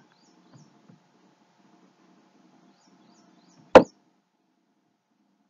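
A single loud, sharp knock about four seconds in, against a faint low hum.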